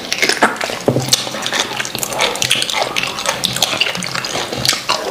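Close-miked eating sounds of two people biting and chewing pieces of meat from ogbono soup held in their hands: wet chewing, lip smacking and sucking, a dense run of small clicks and squelches.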